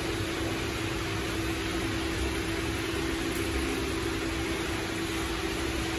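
Electric mini concrete mixer running empty, its motor and drum drive giving a steady hum with one constant tone.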